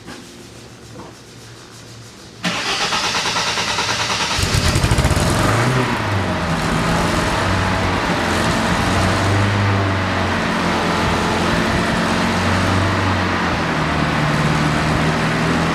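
A car engine cranked by its starter motor for about two seconds, catching about four seconds in and then running steadily at idle.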